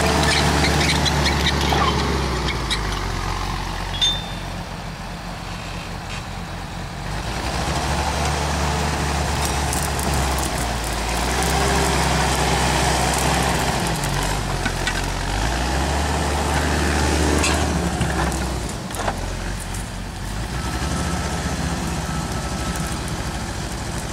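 Timberjack 1110D tracked forwarder's diesel engine running, its revs rising and falling several times as the machine works. There is one sharp metallic clank about four seconds in.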